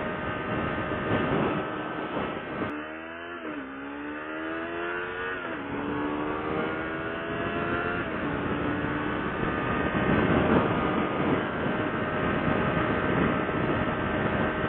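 Motorcycle engine and wind rush heard from the rider's mic while riding. A few seconds in the engine slows, then pulls up in pitch, shifts gear and climbs again, before settling back into steady riding noise.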